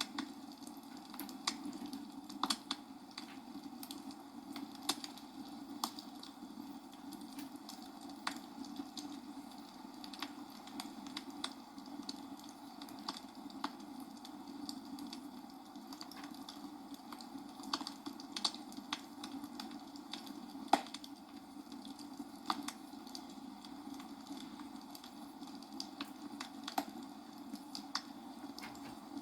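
Irregular sharp clicks and crackles over a steady low hum, with one louder click about three-quarters of the way through.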